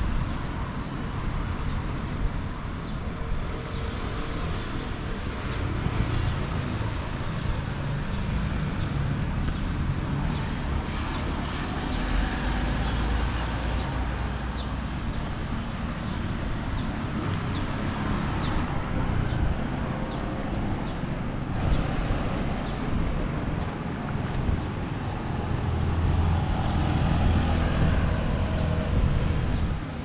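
Road traffic: cars and motor scooters passing on a street, a steady low rumble that swells as vehicles go by, loudest about twelve seconds in and again near the end.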